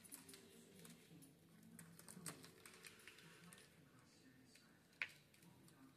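Faint crumbling and ticking of potting soil and lava-rock grit being worked off a juniper's root ball by hand and falling into a plastic container, with one sharp click about five seconds in.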